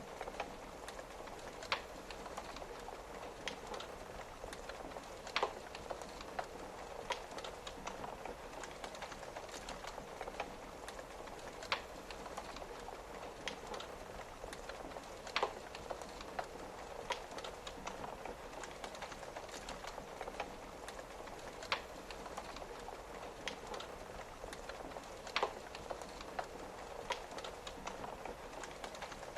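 Wood fire crackling, with a sharp pop every few seconds, over the steady patter of rain tapping on a window.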